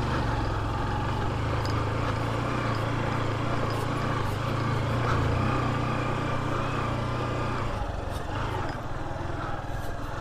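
Motorcycle engine running steadily under way on a rough dirt road. Its note drops away about eight seconds in as the throttle eases.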